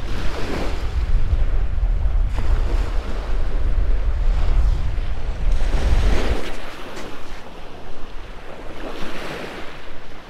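Small waves breaking and washing up onto a sandy beach, swelling and fading several times, with strong wind buffeting the microphone. The wind rumble eases about two-thirds of the way through.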